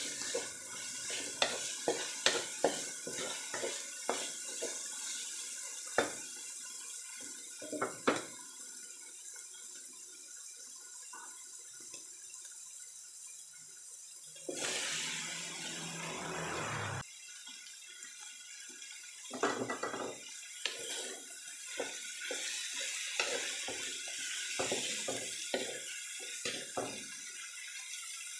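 Ground pork frying in a large metal wok: a steady sizzle with scrapes and taps of a wooden spatula against the pan. About 15 seconds in, a louder rush of sizzling lasts about two seconds as sliced chayote is tipped into the hot pan, then the scraping of stirring resumes.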